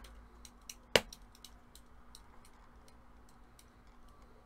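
Scattered light clicks of a computer keyboard and mouse, with two sharp, louder knocks, one at the very start and one about a second in. The clicks thin out after the first couple of seconds.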